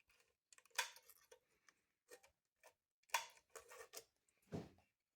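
Faint, scattered clicks and short scrapes of small tools working at the breaker points of an old Maytag washing-machine engine while the points are cleaned, with a duller knock near the end.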